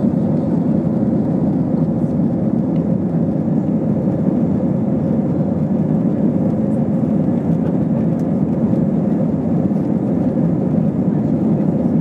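Airbus A320-232's cabin noise during the initial climb after take-off: the steady roar of its IAE V2500 engines and airflow heard inside the cabin, with a faint steady whine.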